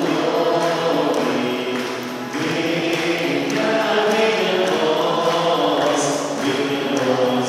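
Many voices singing a hymn together in a church, a steady sung melody that changes note every second or so.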